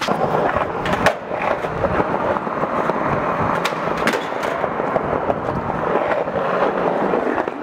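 Skateboard wheels rolling over a hard tiled floor, a continuous gritty rumble, with sharp clacks of the board about a second in and twice around four seconds in.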